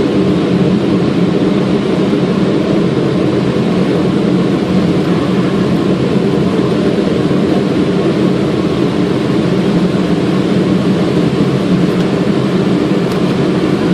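Boeing 777 flight deck on final approach with flaps at 30: a steady rush of airflow and engine noise, even and unchanging throughout.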